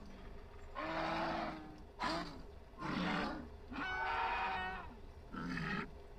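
Dinosaur roar and growl sound effects: five short calls in a row, each a second or less, with brief pauses between.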